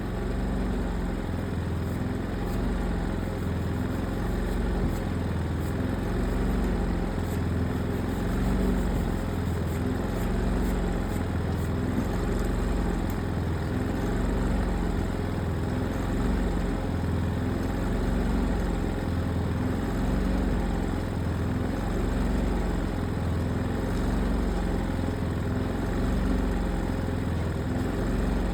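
An engine running steadily at idle, its low drone rising and falling on a slow, regular cycle.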